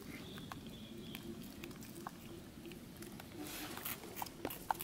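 Light scattered taps and scuffs of a baby macaque moving over concrete and dry leaves, with a short rustle about three and a half seconds in, over a faint steady low hum.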